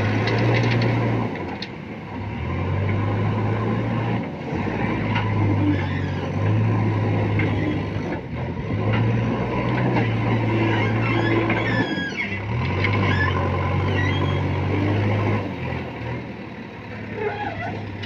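JCB backhoe loader's diesel engine working under load, its note stepping up and dropping back every few seconds as it reverses, scoops and dumps crushed stone into a tipper truck.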